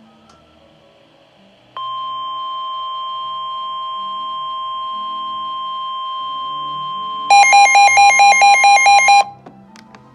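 NOAA Weather Radio's 1050 Hz warning alarm tone: a steady single tone starting about two seconds in and holding for about five seconds. It gives way to a much louder warbling electronic alarm that alternates between two pitches about six times a second for about two seconds, then cuts off sharply.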